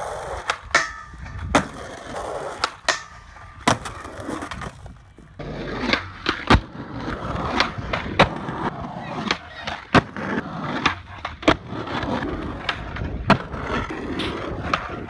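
Skateboard rolling on concrete, with sharp clacks of the tail popping and the board landing, about a dozen times. Near the end the board scrapes along a concrete ledge.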